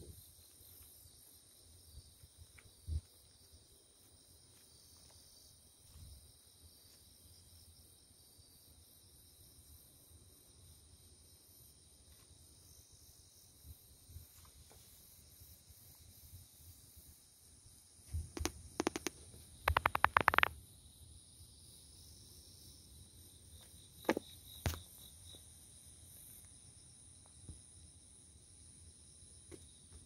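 Crickets chirring steadily at a high pitch on a summer night. Past the middle, a quick cluster of knocks and thumps is the loudest sound, with a couple more a few seconds later.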